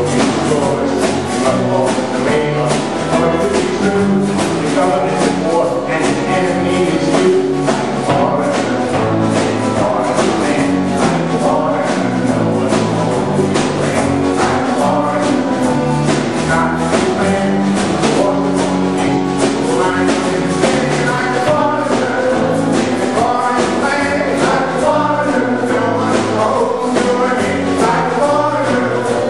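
Live band playing a song with a steady drum beat, acoustic and electric guitars, and singing.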